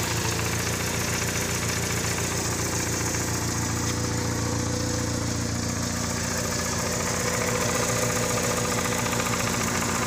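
VW Gol's carburetted 1.6 CHT four-cylinder engine idling steadily with a light, even tapping knock ('tec, tec, tec') that sounds like valve tick. Adjusting the valves has not cured it; the owner traces it to play in the clutch shaft and its support, which he thinks has a seized bushing.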